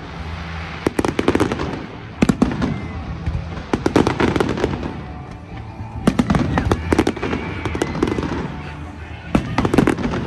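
Display fireworks going off in rapid clusters of sharp bangs every second or two, with music playing underneath.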